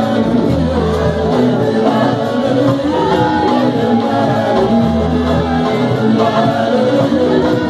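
Live gospel praise music: voices singing together over a band with keyboard and drums, with long, deep bass notes.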